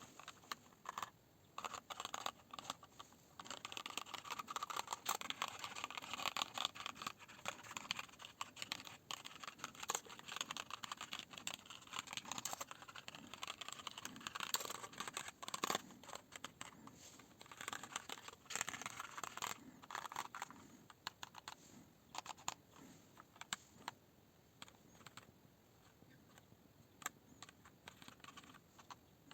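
Typing on a Qcyber Dominator TKL keyboard: fast runs of clattering keystrokes, with scattered single key presses in between and toward the end.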